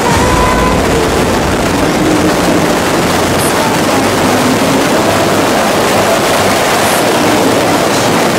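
Loud, steady rush of freefall wind buffeting the microphone of a skydiver's camera.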